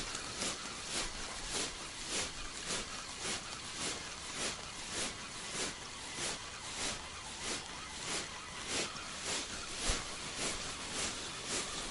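Regular rhythmic swishing strokes, about three a second, with a faint steady whine underneath.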